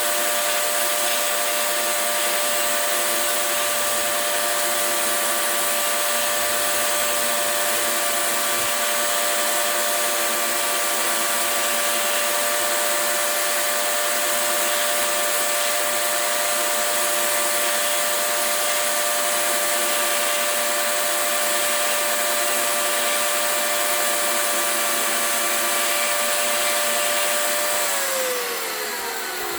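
Electric power cutting tool running steadily at high speed, free-spinning or lightly cutting wood. Near the end it is switched off and its pitch falls as the motor winds down.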